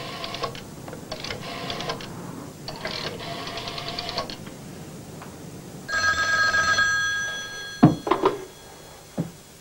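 Old dial telephone's bell ringing in repeated bursts of rapid striking. The last ring, a little after halfway, sounds on clear steady tones that carry on briefly, and a few short knocks follow as the receiver is handled.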